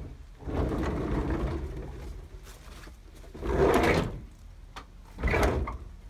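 Sliding side door of a 1977 VW Type 2 bus being run along its track three times, the first run the longest and the last short. The door is being tried out after its hinges were freed, cleaned and rehung.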